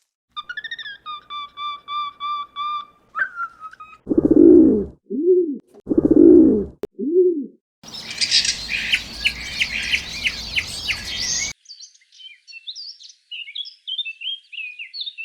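A string of separate animal calls, mostly birds: first a repeated whistled note, then two low, drawn-out calls each followed by a shorter one. After that comes a burst of dense chirping over a hiss, and finally a run of quick high chirps.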